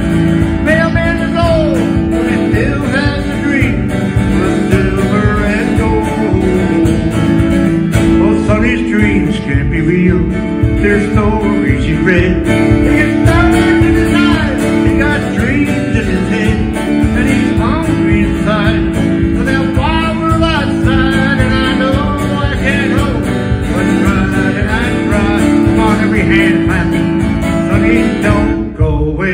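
Man singing a country-folk song while strumming an acoustic guitar.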